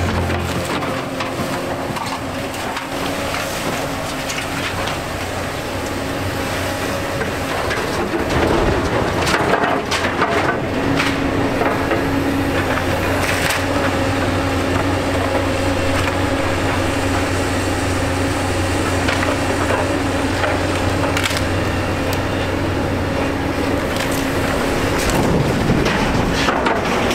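Excavator demolition grapple crushing and breaking up wooden barn debris, with wood cracking and splintering and several sharp knocks a third to halfway through. The excavator's diesel engine runs steadily underneath.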